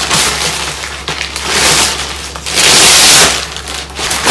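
Plastic mailing bag crinkling and rustling as a rolled canvas in shiny wrapping is pulled out of it, loudest in two long crackles near the middle.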